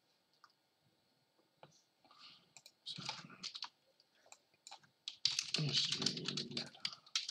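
Typing on a computer keyboard: a few scattered clicks, a short burst about three seconds in, then a fast, dense run of keystrokes over the last two seconds.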